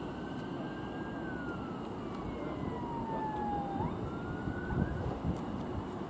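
An emergency vehicle's siren wailing: a single tone sweeping slowly up, holding, falling and rising again, over a steady low background rumble.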